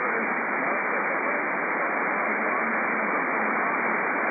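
Steady hiss of band noise from a shortwave receiver tuned to lower sideband, heard through the narrow SSB audio passband with no station transmitting: the open channel between overs.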